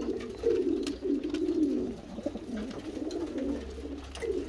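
Belgian racing pigeon hen cooing continuously in a low, warbling run of coos. It is the defensive cooing of a hen guarding her nest box and young squab against an intruding hand.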